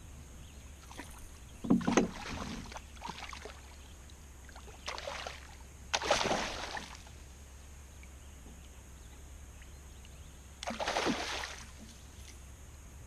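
Water splashing around a small boat or kayak in four short bursts, over a steady low hum.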